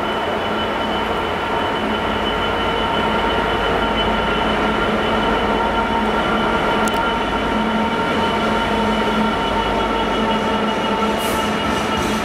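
A British Rail Class 66 diesel locomotive approaches and passes slowly, its two-stroke V12 engine running with a steady drone and several steady high whining tones. Near the end the hopper wagons behind it start going by with a regular clicking of wheels over rail joints.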